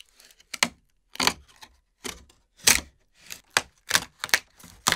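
A series of sharp, irregular clicks and knocks, about ten in five seconds.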